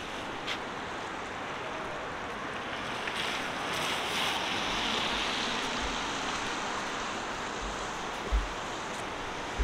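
Downtown street ambience: a steady rush of city traffic, swelling as a vehicle passes a few seconds in. A few short low thumps come in the second half, the loudest near the end.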